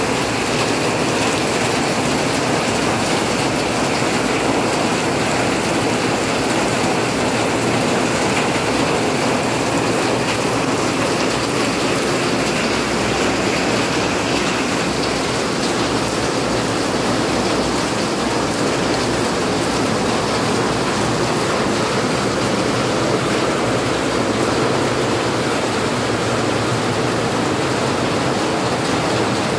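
Steady rain falling, a loud even hiss with no break.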